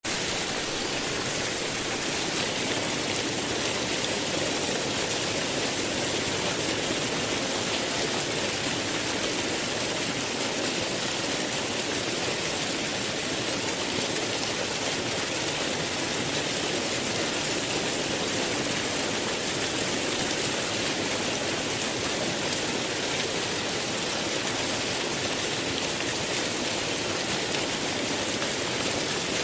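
Steady rush of flowing stream water, an even hiss with no distinct events.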